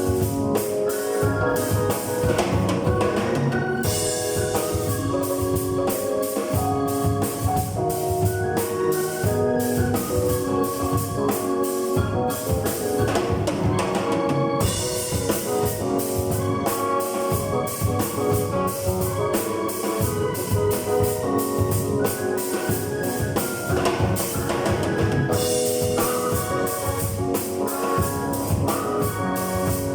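Music track with a steady drum kit beat under held keyboard chords.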